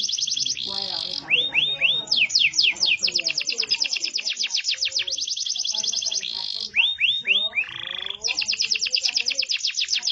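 Domestic canary singing: long, fast trilled rolls of rapidly repeated falling notes, twice broken by a short run of three slower swooping notes.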